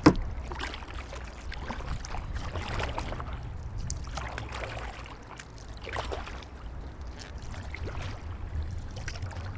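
Kayak paddle strokes dipping into and splashing the water, several times, with a sharp knock right at the start.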